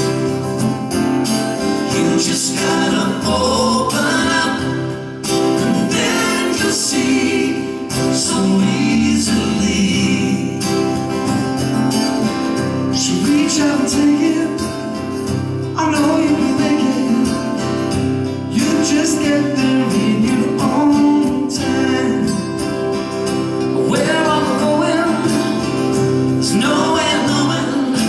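Live acoustic band: acoustic guitars with men's voices singing into microphones.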